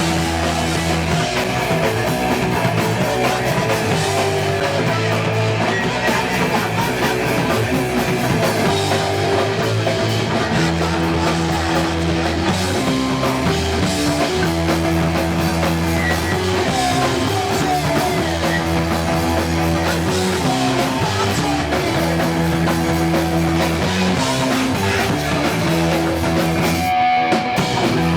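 Punk band playing live: electric guitar chords, bass and a drum kit played at a fast, steady clip.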